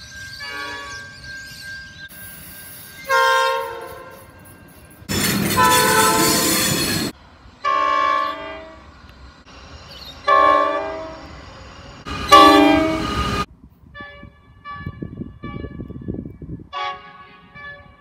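Train air horns sounding multi-note chords in a string of separate blasts, each about one to two seconds long. The loudest blast comes about two-thirds of the way through, and fainter soundings follow near the end.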